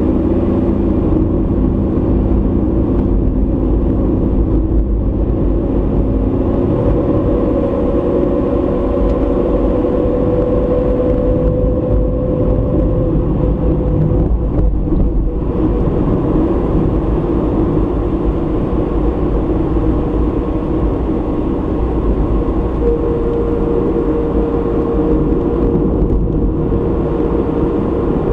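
Car driving, recorded by a dashboard camera inside the cabin: a steady low rumble of engine and tyres on the road, with the engine's hum shifting in pitch a few times.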